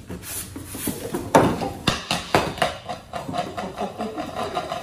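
Cardboard box and packing being handled as a slow cooker is pulled out of it: rustling, scraping and a run of knocks, with one loud knock about a second and a half in.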